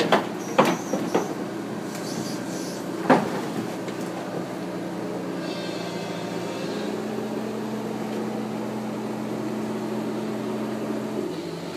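Kobelco excavator's diesel engine running steadily as the machine drives down trailer ramps on its steel tracks, with loud metallic clanks in the first second and another about three seconds in. The engine note drops near the end.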